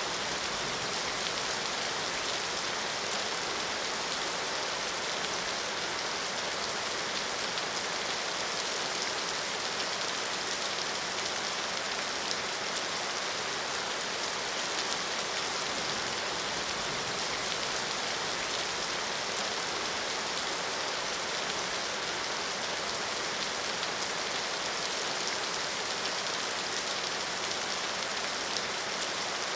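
Steady, even rain falling and pattering on a surface, a continuous hiss without pauses.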